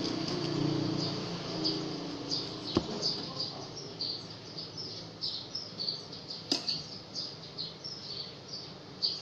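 Small bird chirping over and over, short high falling chirps two or three times a second. A knife peeling a pineapple knocks sharply against a plastic cutting board twice, about three seconds and six and a half seconds in.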